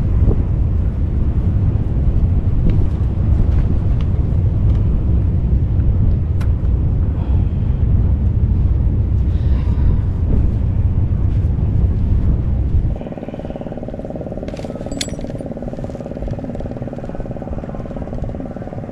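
Strong wind buffeting the microphone with a low rumble. About two thirds of the way through it cuts off abruptly, and a steady, quieter motor drone with a constant pitch takes over.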